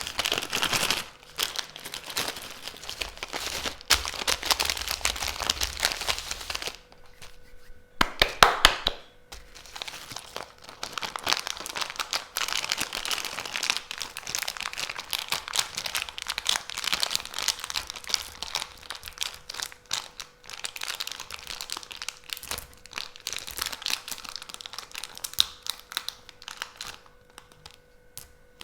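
Plastic candy wrappers crinkling and tearing as sweets are unwrapped by hand, in dense crackling stretches. There is a short pause about seven seconds in, followed by the loudest burst of crinkling.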